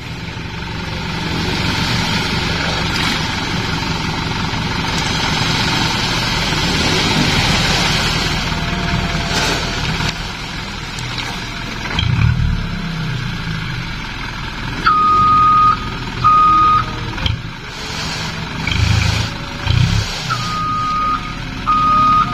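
Light dump truck's engine running while its raised bed tips out a load of sand, the sand hissing as it slides off over the first half. From about two-thirds in, the truck's reversing beeper sounds in short, evenly repeated beeps.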